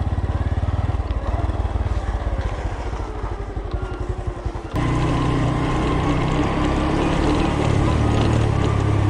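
Geared motorcycle engine running while riding. About halfway through the sound jumps abruptly to a louder, steadier engine note.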